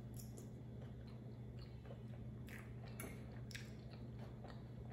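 A person chewing a mouthful of chimichanga in enchilada cheese sauce: soft, wet mouth sounds with a scatter of short smacks and clicks.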